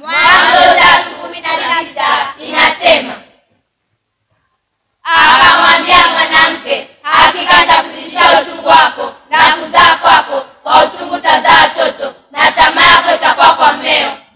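A group of children's voices reciting together in unison, loud, in short rhythmic phrases, with a break of about two seconds a few seconds in.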